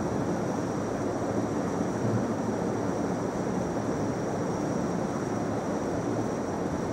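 Steady background noise of the prayer hall: an even rumble and hiss with a faint steady high whine, no voice.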